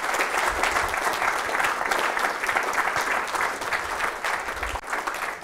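Audience applauding: many hands clapping together in a dense, steady patter that thins out near the end.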